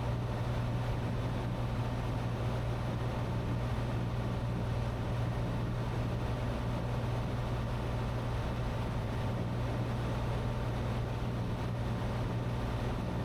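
Cessna 182T's six-cylinder Lycoming engine and propeller droning steadily, heard inside the cabin on the approach to land.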